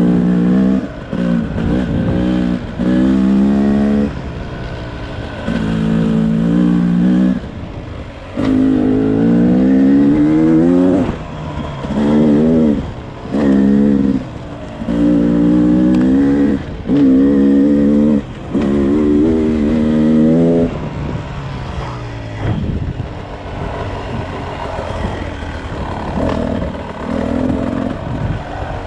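Beta RR 300 single-cylinder two-stroke engine revving in about ten bursts of throttle, the pitch climbing under some of them and dropping back between. After about twenty seconds it runs quieter and steadier.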